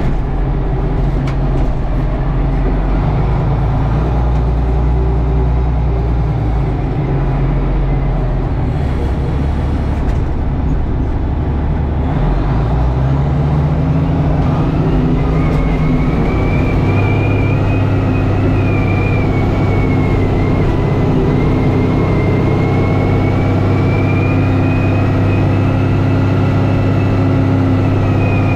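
Tractor engine running steadily while plowing ice and compacted snow; about halfway through its pitch rises and then holds, with a thin, wavering high whine over it.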